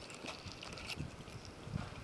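A pat of butter melting in a hot pan on a gas stove, giving a faint sizzle with scattered small crackles.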